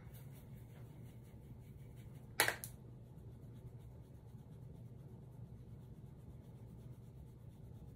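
Makeup brush working powder over the face against a low steady room hum, with one short, scratchy swish about two and a half seconds in.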